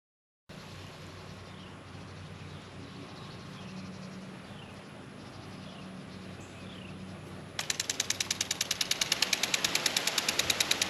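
Faint outdoor ambience with a few small high chirps, then, about three-quarters of the way in, an Orbit Yard Enforcer motion-activated sprinkler is triggered and sprays in a rapid, even pulsing of about nine bursts a second.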